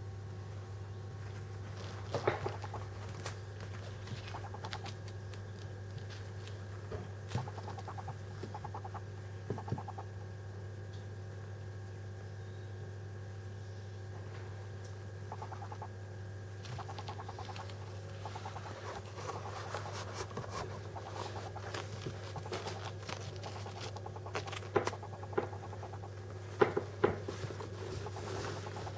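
Senegal parrot chicks about a month old giving short bursts of soft, rapid pulsing calls, with scratching of claws on a towel and a steady low hum underneath. A few sharper knocks and scratches come near the end.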